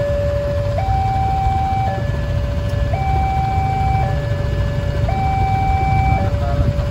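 Railway level-crossing warning alarm sounding a steady two-tone alternation, a lower and a higher tone each held for about a second, over the low rumble of idling motorcycles and cars waiting at the crossing.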